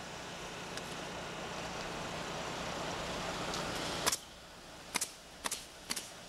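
A heavy-equipment engine running: a steady low hum under a noisy haze that swells and then cuts off abruptly about four seconds in. Four sharp clicks follow in the last two seconds.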